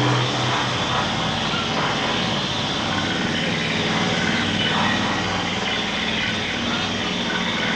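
Steady, dense droning noise from a horror film's experimental soundtrack: a harsh, machine-like drone with no clear melody or beat.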